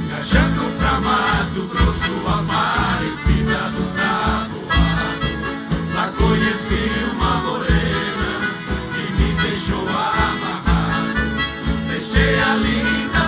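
Live Brazilian country (caipira) music from a band: a passage with a melody line over a steady, pulsing bass beat.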